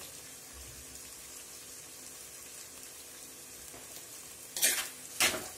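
Chopped onions with curry leaves and chillies frying in coconut oil in a black pot, a steady soft sizzle. Near the end a metal spoon scrapes through them twice as the stirring begins.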